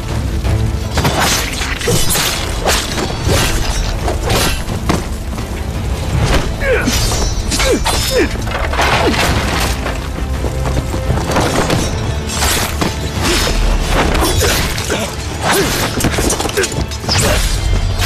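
Dramatic film score under a battle soundtrack, with many sharp clashes and crashes, sword blades striking, and low booms throughout.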